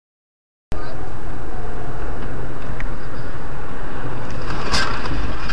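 Silence, then a car's steady road and engine rumble cuts in abruptly about a second in and holds level, with a brief sharp noise near the end.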